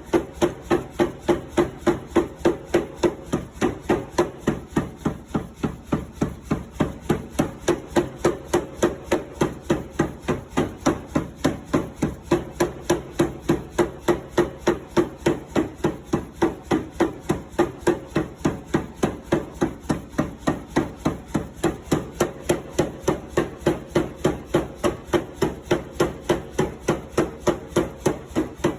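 Steady, even hammering on hot steel bar stock, about three blows a second, as the bar is forged down to round.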